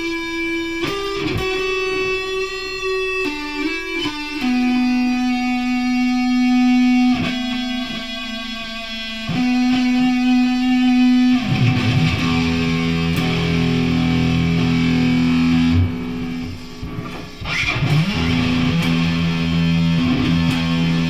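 Guitar played through effects: long, ringing held notes that give way about halfway through to a thicker, distorted sound with a brief dip near the end.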